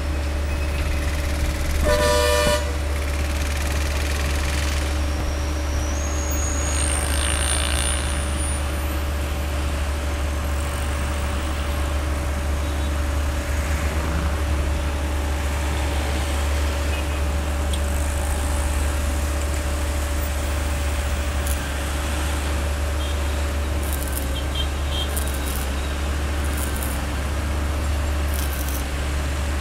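Road traffic with a steady low hum, and a vehicle horn honking briefly about two seconds in.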